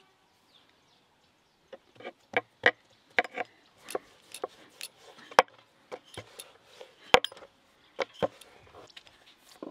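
Wooden rolling pin working folded nimki dough on a wooden board: irregular sharp knocks and clacks of wood on wood, a few a second, starting about two seconds in.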